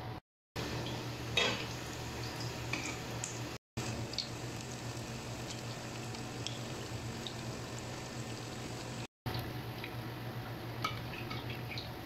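Hot oil sizzling steadily around stuffed qatayef deep-frying in a small pan, with light clicks of a metal spoon and spatula against the pan as the pastries are turned. The sound cuts out briefly three times.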